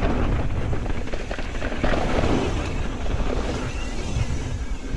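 Wind buffeting the microphone over mountain bike tyres rolling and crackling on a dirt trail during a fast descent, with a steady low rumble and constant fine clatter.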